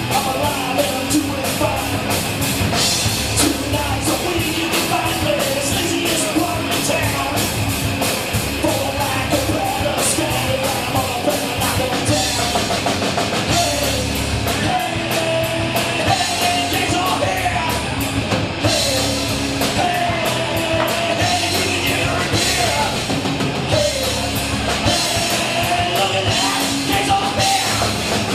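Rock music with a drum kit and singing.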